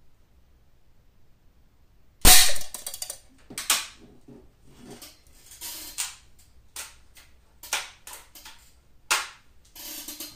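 Daisy 880 multi-pump air rifle firing BBs at a paper target in a metal pellet trap: one loud sharp crack with a short rattle about two seconds in, followed by a string of lighter clicks and knocks, with another sharp one near the end.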